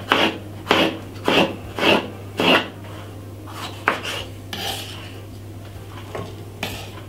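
Knife slicing a red pepper on a wooden chopping board, about two strokes a second for the first two and a half seconds. Then come a few lighter knocks and rustles as the strips are laid into a glass baking dish.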